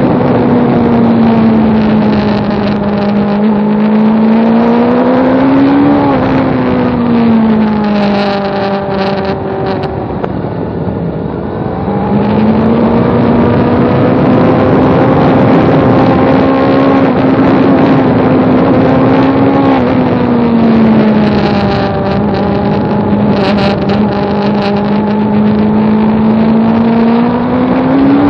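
2002 Suzuki GSX-R600's inline-four engine running hard on the throttle. Its pitch climbs for several seconds and then drops sharply. It runs lower and quieter around ten seconds in, climbs again and holds steady, drops again, and rises once more near the end.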